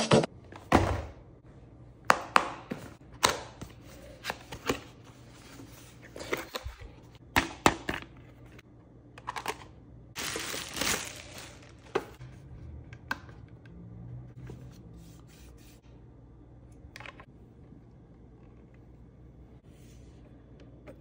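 Handling noise from unboxing and handling a clear plastic cassette and cassette deck: a dozen or so sharp separate clicks and knocks of plastic and cardboard, with a rustle of about a second roughly ten seconds in. It thins out to a few faint clicks in the second half.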